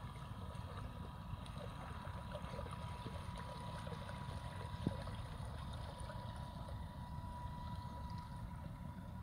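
1:6 scale RC Riva Aquarama model runabout running on its brushed electric motors: a steady high motor whine with the hiss of the hull through the water, over a low rumble. A single sharp click about five seconds in.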